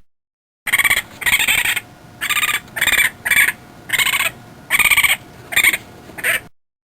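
A run of about nine short, buzzy animal calls, each lasting under half a second, with one longer call near the start. The calls cut off abruptly near the end.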